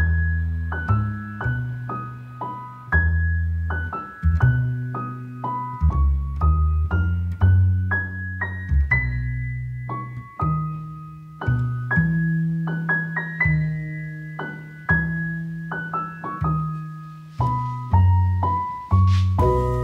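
Background piano music: a gentle melody of single struck notes over sustained bass notes, each note fading after it is played.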